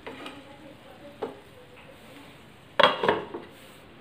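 Wooden spatula stirring chicken liver masala in a nonstick frying pan, with a few light knocks, then a glass lid set down on the pan with a clatter about three seconds in.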